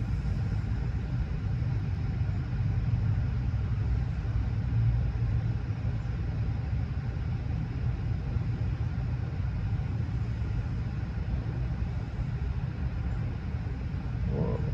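A steady low rumble with no distinct events, and a brief higher sound near the end.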